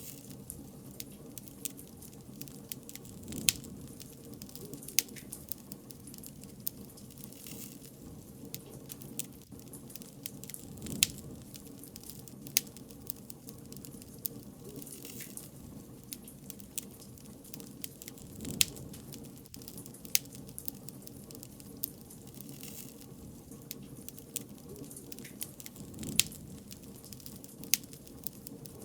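Wood bonfire crackling: a steady low rustle of burning with irregular sharp snaps and pops, and a few louder pops several seconds apart.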